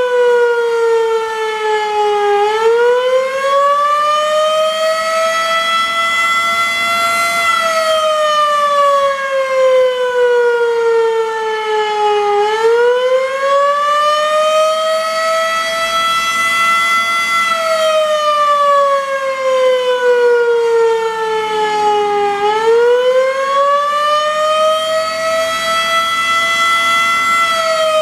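Federal Enterprises Model 5 outdoor warning siren sounding the Attack signal: a slow, wavering wail. Its pitch climbs, quickly at first, then slides slowly back down, about every ten seconds, rising three times.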